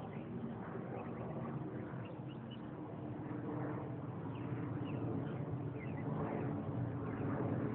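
Backyard ambience: a steady low rumble of distant traffic, growing slightly louder towards the end, with faint short bird chirps scattered throughout.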